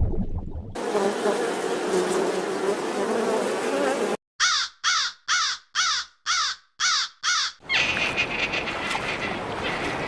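An animal call repeated seven times in quick, even succession, between stretches of noisy background sound.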